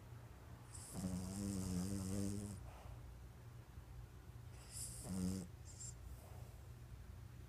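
A sleeping pet snoring twice: a long snore about a second in, lasting about a second and a half, and a short one about five seconds in. Each snore is a low pitched rasp with a hiss on top.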